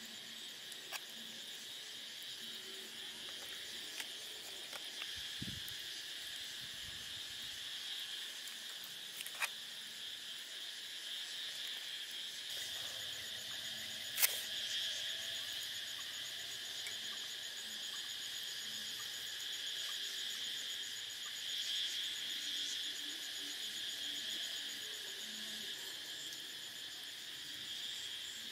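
Steady chirring of night insects in a high, continuous chorus. There are a few faint clicks and one sharp click about halfway through.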